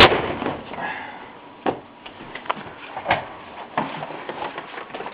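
A loud knock at the start, then a few lighter scattered knocks and clicks, as a door is swung wide and propped open with an object.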